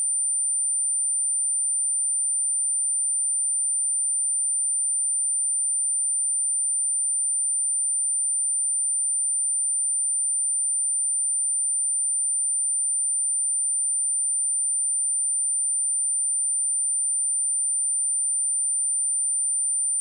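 A steady, high-pitched 9135 Hz pure sine-wave test tone, held at one pitch and level throughout.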